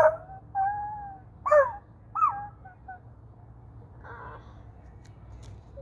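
A person imitating a wolf's whimpers and yelps: a quick series of short, high-pitched cries, mostly falling in pitch, in the first three seconds, then a fainter one about four seconds in.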